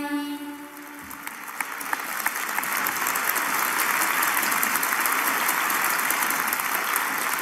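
A children's choir's final sung note fades out, then applause begins about a second in and swells to steady, sustained clapping.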